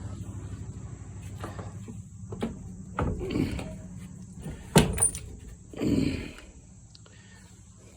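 Parts being handled on a bench: a few separate knocks and clunks, the loudest a little before the middle, over a steady low hum.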